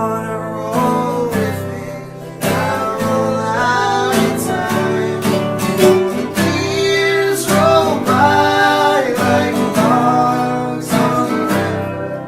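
Folk song on strummed acoustic guitar, with a gliding melody line carried over the chords.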